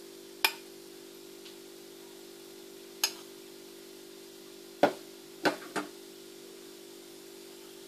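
A metal spoon clinking against a glass bowl: five sharp knocks, one about half a second in, one about three seconds in, and three close together near the two-thirds mark, over a steady low hum.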